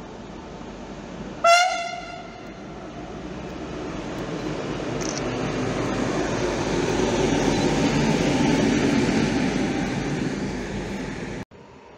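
PKP Cargo ST44 diesel locomotive running light engine past: one short horn toot about one and a half seconds in, the loudest sound, then its engine and wheels growing louder as it goes by and easing off, cut off suddenly near the end.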